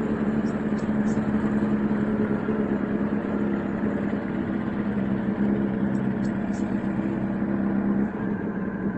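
Motorcycle engine running at a steady speed. Its steady hum drops away about eight seconds in.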